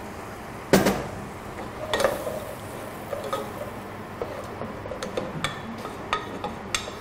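A utensil stirring a thick bread-and-broth puree in a pot on the stove, with a sharp clank about a second in and light clinks and scrapes against the pot every so often after.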